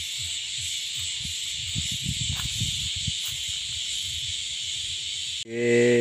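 Steady, high insect chorus buzzing over irregular dull low thumps from walking and camera handling. Near the end it cuts off abruptly and a man's voice begins.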